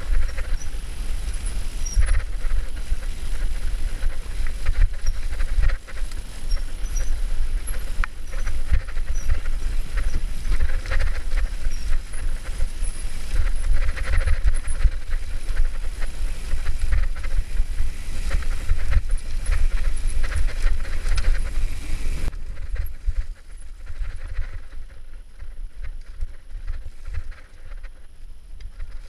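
Mountain bike rattling down a rocky, rooty forest singletrail, with a steady low rumble of wind on the camera's microphone and many knocks as the wheels hit roots and stones. About 22 seconds in it becomes quieter and less rattly as the trail turns to smooth dirt.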